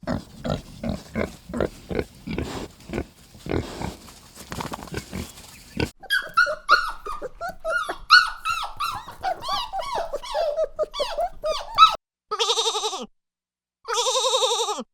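A run of farm-animal calls in three cut segments. First comes about six seconds of rough grunting, roughly three grunts a second. Then about six seconds of quick, high, rising-and-falling squeaks, and finally two long bleats that drop in pitch at their ends.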